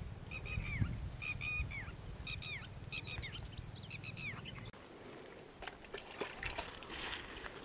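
Small birds chirping in quick repeated groups of short falling notes over a low rumble, which both cut off suddenly about two-thirds of the way in. Then come scattered clicks and a brief splash of water poured into a hanging plastic glucose bottle used as a drip feeder.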